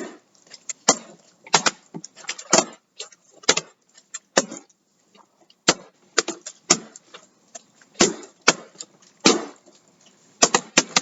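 Plastic water bottles being flipped and landing: a run of irregular sharp knocks and clacks, several in quick succession at times, with short gaps between.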